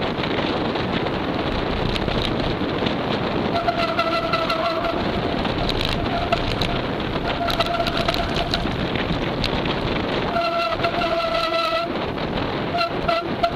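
Mountain bike brakes squealing in five separate pulls, each a steady one-note squeal of about half a second to a second and a half, over steady wind and tyre rush.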